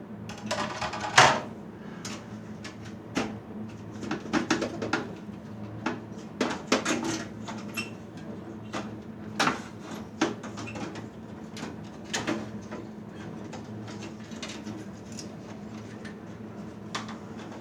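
Irregular metal clicks, clanks and rattles of a Dell PowerEdge 4300 server chassis being taken apart by hand, with the loudest clank about a second in, over a steady low hum.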